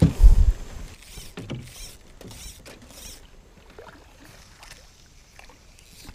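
Wooden paddle dipping and stirring in river water beside a small boat, with soft swishes and splashes. A few loud low thumps come right at the start.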